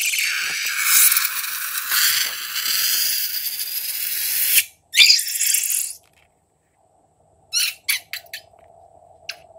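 Paint squirting out of the stretched neck of a rubber balloon as it is squeezed: a loud, high hiss that cuts off suddenly a little past halfway, then a second short spurt. A few faint clicks follow near the end as the neck is pinched.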